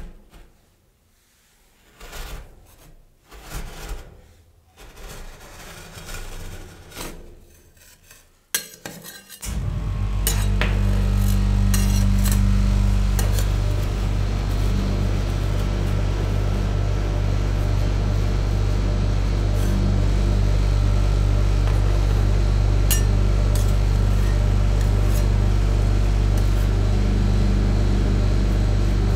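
Metal spatula scraping and rolling frozen ice cream across a stainless-steel cold plate, in short separate strokes. About nine seconds in, a steady low machine hum starts suddenly and stays, louder than the scraping: the cold plate's refrigeration unit running, with a few more scrapes over it.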